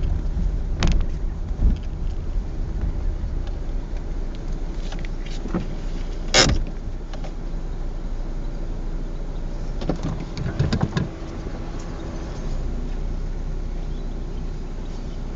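Car running, heard from inside the cabin as a steady low rumble, with a few sharp clicks and knocks: the loudest about six seconds in and a cluster about ten to eleven seconds in.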